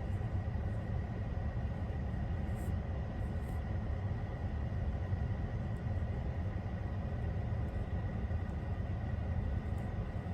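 A soft brush rubbing over the camera, picked up by the camera's own microphone as a steady, dense low rustling rumble with a few faint light ticks.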